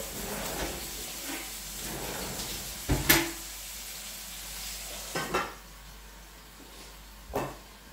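Steak frying in hot oil in a pan, a steady sizzle. A sharp metal clank comes about three seconds in and two lighter knocks follow later; the sizzle grows quieter after about five seconds.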